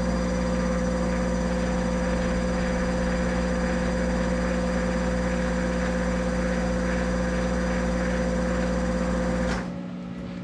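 Monarch 10EE lathe running steadily with a constant motor whine and hum, the carriage running back on the engaged lead screw; about nine and a half seconds in it stops abruptly under the lathe's dynamic brake.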